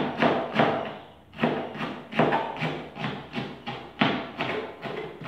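Kitchen knife chopping a vegetable on a cutting board: quick, even chops about three a second, with a short pause about a second in.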